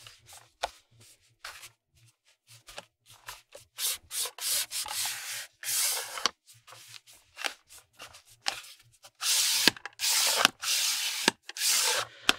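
Aluminium sections of a Neewer NW-088 boom pole scraping against each other as the twist-lock collars are turned and the tubes are worked back and forth: a run of short, irregular rasping rubs, with longer and louder ones near the end. The sections are sticking and grinding instead of sliding freely.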